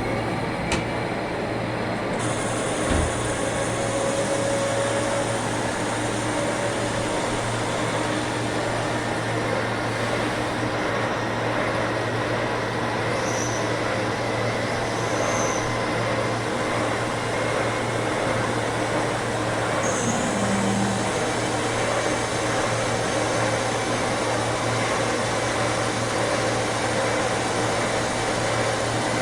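CNC lathe running in a workshop: a steady machine hum with an even hiss and a few faint clicks.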